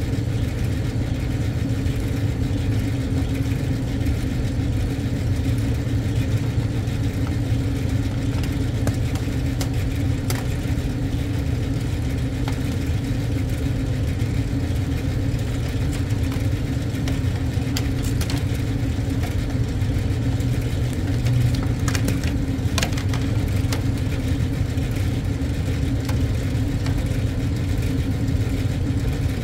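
Steady low mechanical hum of rooftop machinery running, with a few sharp clicks as wire cutters bite into metal conduit.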